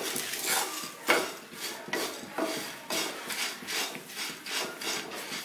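Stirring curry leaves, dried red chillies and urad dal as they dry-roast in a kadai: the leaves rustle and a spatula scrapes the pan in repeated strokes about twice a second, one louder scrape about a second in.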